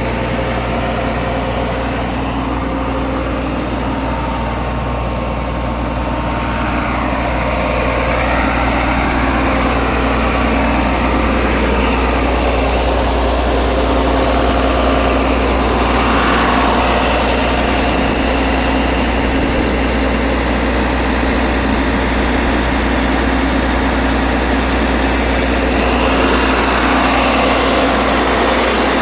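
Asphalt paver's Cummins 5.9-litre six-cylinder diesel engine idling steadily, getting a little louder about eight seconds in.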